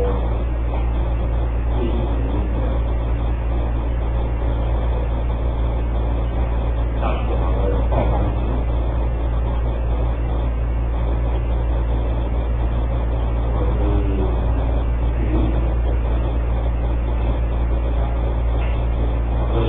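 Steady low hum with a constant hiss, with faint voices coming through a few times.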